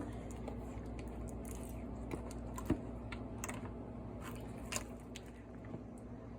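Sticky, wet slime being handled by hand: scattered faint clicks and small sticky pops, irregular, with one a little louder near the middle, over a low steady hum.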